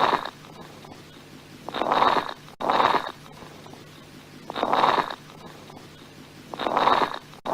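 Lung sounds heard through a stethoscope: repeated breaths in and out, carrying coarse crackles (rales), short, low-pitched popping sounds. About three breath cycles, each breath lasting about half a second.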